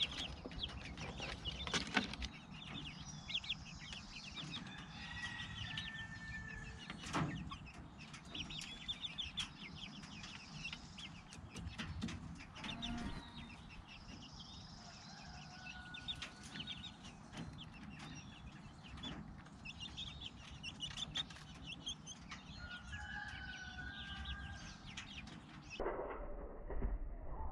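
Young grow-out chickens cheeping and clucking in many short, high calls, with a few sharp knocks, the loudest about 2 and 7 seconds in.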